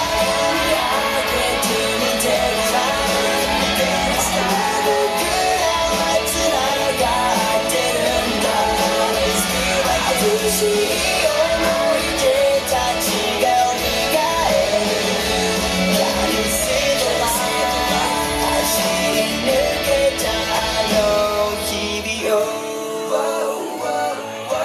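Pop-rock dance track played loud over a sound system, with singing, guitar and a steady beat. The bass and drums drop out about two seconds before the end.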